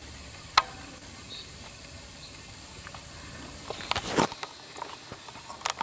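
Quiet outdoor background hiss, broken by one sharp click about half a second in and a short burst of scuffing or rustling about four seconds in.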